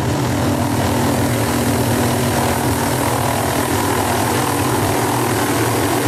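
Light helicopter's rotor and engine running steadily as it lifts off and climbs.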